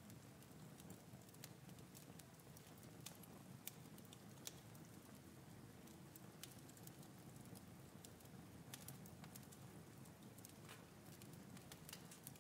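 Very faint, steady low hum of room ambience with scattered, irregular sharp clicks and ticks.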